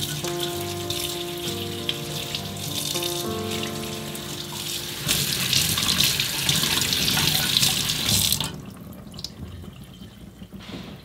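Stainless pull-down kitchen faucet running into the sink, getting louder about halfway through and then cut off suddenly. Soft background music with held notes plays over the first half.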